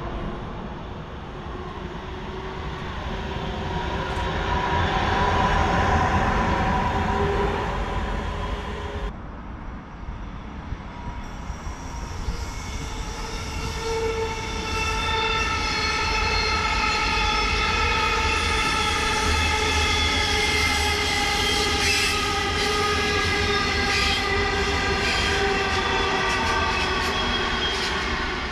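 A train moving through a station, with a steady low running rumble. About nine seconds in the sound changes abruptly, and from about twelve seconds on a steady whine of several high tones sits over the rumble.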